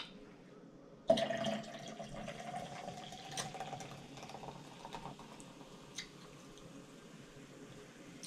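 Dark carbonated soda poured from an aluminium can into a glass. The pour starts with a splash about a second in, then its pitch rises slightly as the glass fills, with a steady fizz of foam underneath.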